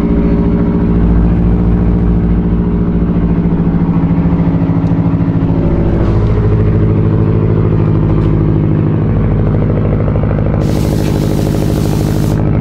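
Subaru STI's turbocharged flat-four idling steadily through an aftermarket exhaust, just after being started. The idle tone shifts about halfway through, and a couple of seconds of hiss come near the end.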